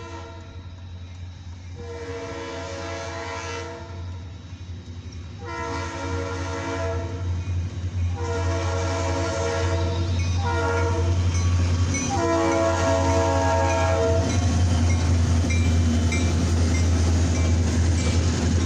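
Diesel freight locomotive horn sounding five blasts for a grade crossing, the last four in the long-long-short-long crossing pattern. Under the horn, the rumble of the approaching train's diesel engines and wheels grows steadily and is loudest near the end as the locomotives pass.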